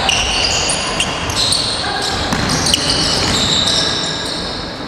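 Indoor basketball play: sneakers squeaking on the gym floor in many short high-pitched squeaks, a ball bouncing, and voices echoing in the hall.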